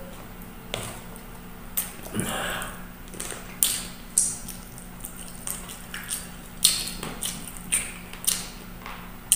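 Close-up mouth sounds of eating adobo chicken feet by hand: wet lip smacks, sucking and chewing on the feet, with a sharp smack about once or twice a second.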